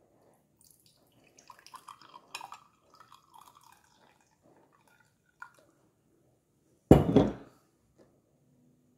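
Brewed coffee poured from a glass Hario V60 decanter into a glass tumbler: a splashing, trickling pour lasting a couple of seconds with light glass clinks. A short, loud noise follows about seven seconds in.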